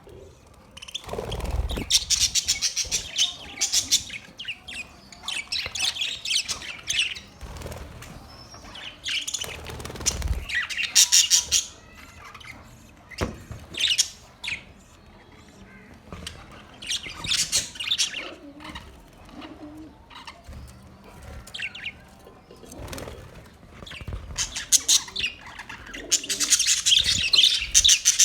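Budgerigars chirping and chattering in rapid bouts that come and go, busiest near the start and again near the end, with a couple of low thumps in between.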